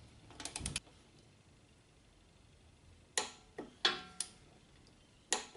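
Torque wrench working the rear axle spindle nut, tightening it to 44 foot-pounds. A quick run of clicks comes about half a second in, then four single sharp metallic clicks over the second half.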